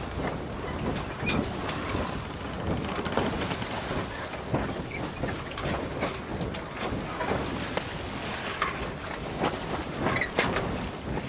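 Sea waves breaking and washing in, with wind buffeting the microphone: a steady rushing noise full of sharp crackles and pops.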